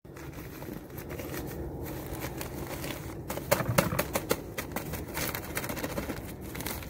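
Pine wood shavings pouring from a plastic bag into a bin-liner-lined bucket, with the plastic bags rustling and crinkling: a continuous dry crackle with a burst of louder crackles about halfway through.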